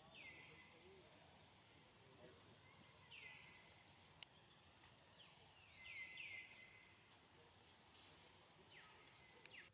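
Repeated short, high calls from an animal, each falling in pitch, with a cluster of them about 5 to 6 seconds in, over a faint outdoor background.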